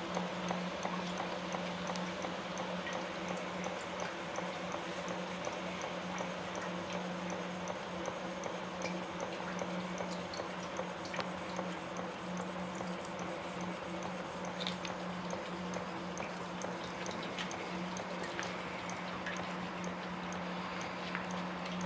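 Home-built gamma-type yoke-drive Stirling engine running steadily, its yoke linkage and piston giving a regular light ticking knock with each turn of the flywheel, over a steady low hum.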